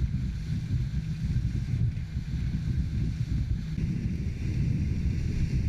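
Speedboat running fast on the water: wind buffets the microphone in a steady, fluttering rumble over the rush of the boat's wake and spray.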